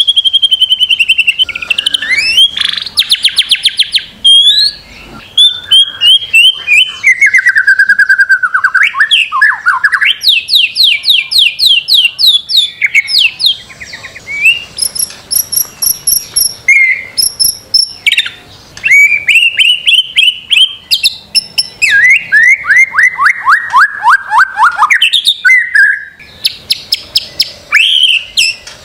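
White-rumped shama (murai batu) singing a loud, varied song of rapid trills, long runs of repeated notes sliding down in pitch, and short high whistles, with only brief pauses between phrases.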